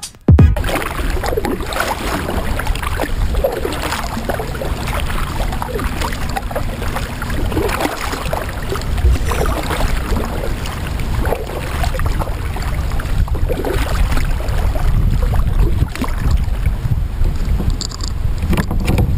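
Small waves lapping and slapping irregularly against a fishing kayak's hull, over a steady low rumble of wind on the microphone.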